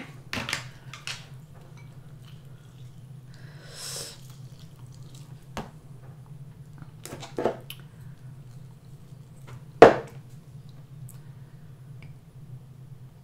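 Scattered clicks, taps and soft squishes of hands working king crab legs, lime wedges and utensils on a plate, over a steady low hum. The loudest is a single sharp knock about ten seconds in.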